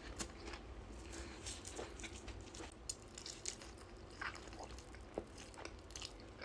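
Faint chewing of fast food close to the microphone, with scattered small wet clicks and crunches over a low steady room hum.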